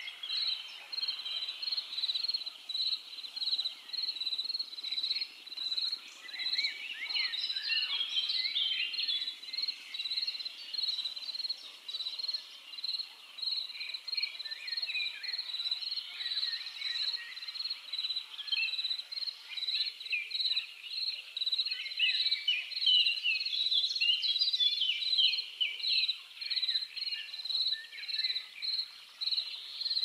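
Dusk ambience: an insect, likely a cricket, chirping in a steady, evenly spaced rhythm, with several songbirds singing short chirps and trills over it.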